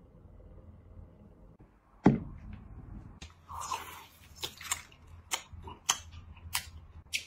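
A single loud thump about two seconds in, then crisp crunching as a person bites into and chews a crunchy fried, spice-and-sesame-crusted food: sharp crunches about once or twice a second.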